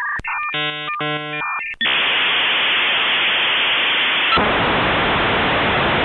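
Dial-up modem connecting: a short run of chirping, warbling tones, then from about two seconds in a loud, steady hiss of static that changes and fills out about four seconds in.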